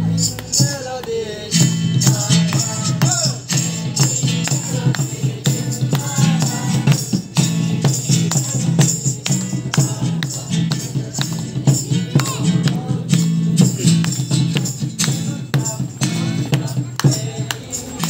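A group singing a Christmas carol together to a steady rhythm of hand claps.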